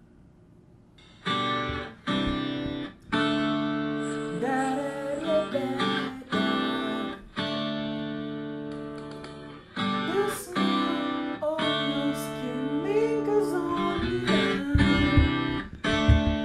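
Strummed acoustic guitar music that starts about a second in, after near silence. Chords ring out, break off and start again, with a wavering melody line over them at times.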